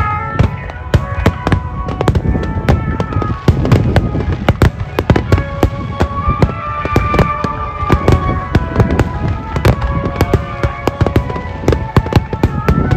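Fireworks barrage: many aerial shells bursting in rapid succession, a continuous run of sharp bangs several times a second with deep rumbling booms under them.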